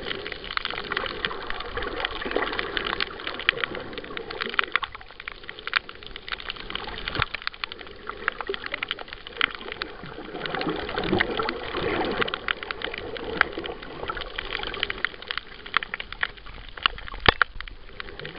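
Underwater sound picked up by a camera held in the sea over a reef: a dense, continuous crackle of sharp clicks, with water sloshing and gurgling against the housing.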